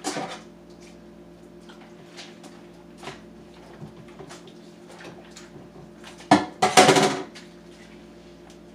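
Dishes and utensils clinking and knocking in a kitchen sink during washing-up: scattered light clinks, then a short burst of louder clattering about six and a half seconds in.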